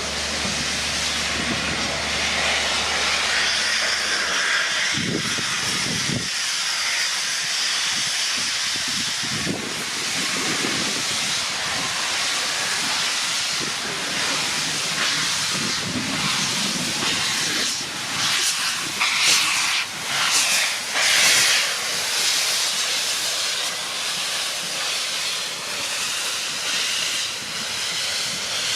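Steam locomotive letting off steam: a steady, loud hiss, with a few louder gusts of steam about two-thirds of the way through. A low hum underneath stops about four seconds in.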